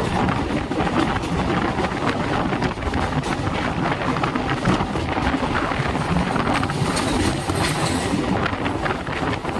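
Moving train running along the rails: a steady rumble and rattle scattered with short clacks, with wind noise.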